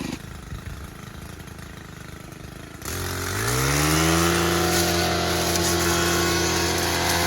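Gas string trimmer's small engine revving up: after about three seconds of quieter noise, the engine jumps in level, climbs in pitch over about a second, then holds steady at full throttle for cutting brush.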